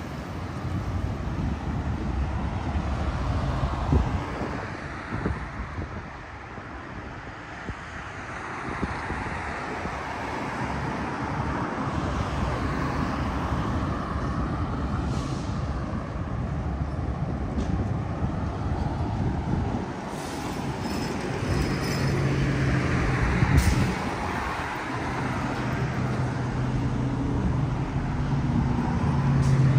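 City street traffic: vehicles passing in waves, with a couple of sharp knocks. Near the end a large engine's steady low hum comes in close by and grows louder.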